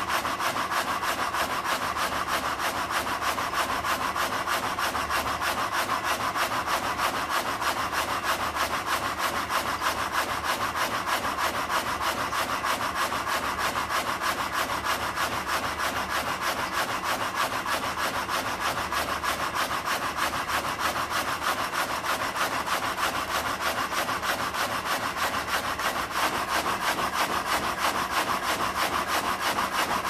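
Sawmill saw cutting through timber: a steady, fast, even rasping rhythm of saw strokes.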